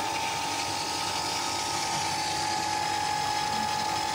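BWD5-40 stainless steel variable-speed booster pump running at low flow, holding 2.5 bar at about 400 to 500 watts: a steady high whine over an even hiss.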